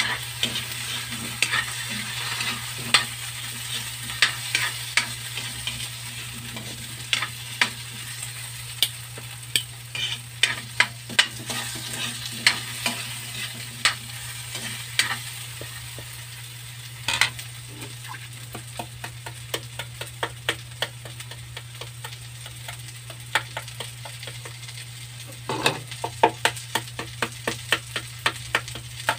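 Potato chunks sizzling in hot oil in a wok while a metal spatula stirs them, scraping and knocking against the pan again and again. Near the end comes a quicker run of light taps.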